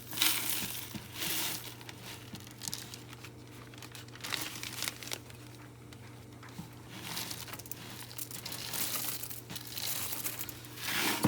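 Plastic bag crinkling in irregular bursts as Frosted Flakes cereal is added to fish-fry breading mix, flakes rustling and crunching.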